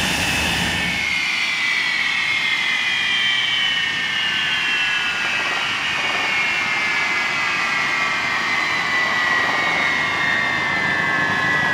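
Hawker Hunter's Rolls-Royce Avon turbojet whining, steady for about a second, then falling slowly and evenly in pitch as the engine winds down after shutdown.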